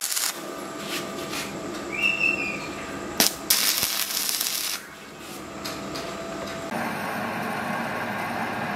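Electric arc welding a bicycle crank arm onto a steel chainring: the arc crackles and sputters in uneven bursts for the first half, then stops. Near the end a metal lathe runs steadily while a boring tool cuts the inside of a tube.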